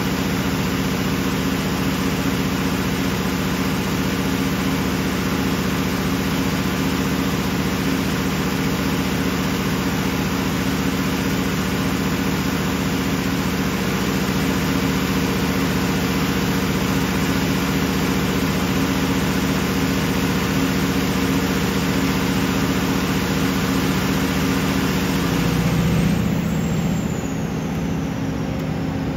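Large diesel engine of a 1600 kW Kohler standby generator running at a steady speed during a load test: a continuous low drone with a steady hum of fixed pitch. Near the end the sound changes and gets slightly quieter.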